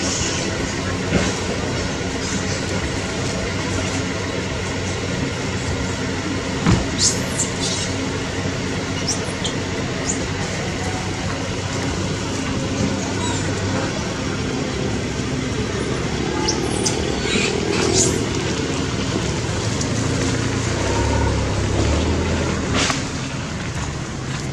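Steady background noise with a low, even hum, broken by a few brief high squeaks.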